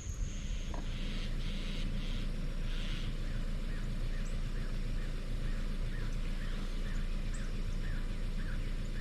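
An animal's short call repeated about three times a second, starting about five seconds in, over a steady low hum.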